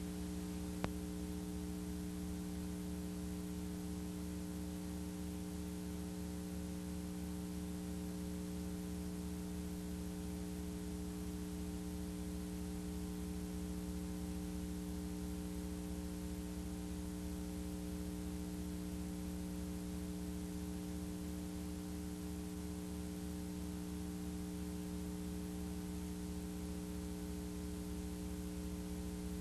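Steady electrical mains hum: several unchanging tones stacked over a faint hiss, with a single small click about a second in.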